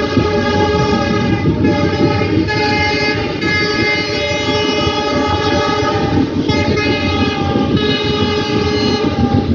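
Train horn sounding in long blasts with short gaps between them, over the steady rumble and clatter of a moving passenger train heard from an open coach doorway.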